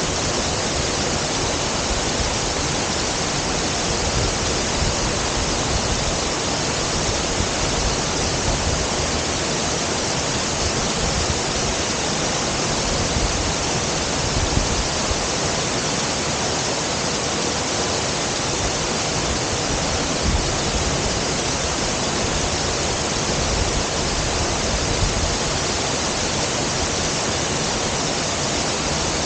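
Waterfall crashing into its pool: a loud, steady, unbroken rush of falling water.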